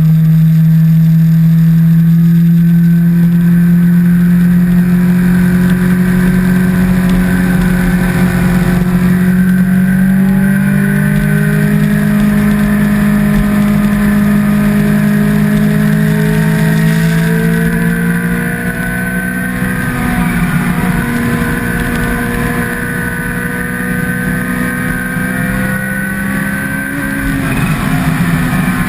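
Kawasaki H2's supercharged inline-four engine running at a steady cruise, its pitch climbing slowly as the speed builds gently, then easing off a little about two-thirds of the way in. Wind and road noise run under it.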